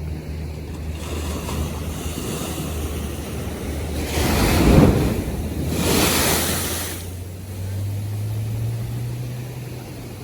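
North Sea waves washing, with two louder surges of surf about four and six seconds in, and wind buffeting the microphone. A steady low hum runs underneath and rises slightly in pitch near the end.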